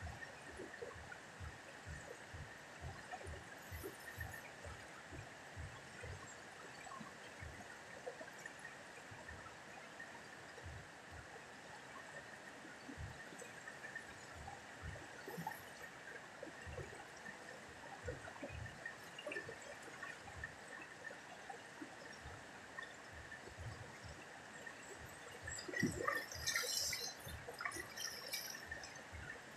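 Steady faint rush of a wide, muddy river flowing past rocks, with a brief spell of louder splashing near the end as water is scooped over a bather's head and face.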